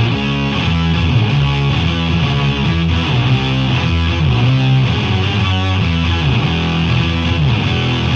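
Electric guitar played through a KMA Machines Fuzzly Bear fuzz pedal: a fuzzy, distorted riff of low notes, changing several times a second.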